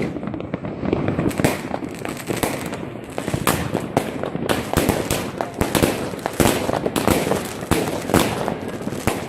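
Many fireworks and firecrackers going off at once: a dense, unbroken run of bangs and crackling pops, growing busier about halfway through.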